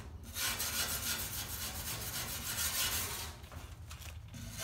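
Pulsed MIG welding arc running aluminum wire into 5052 aluminum plate: a steady hiss that starts a moment in and cuts off about three seconds later as the bead is stopped.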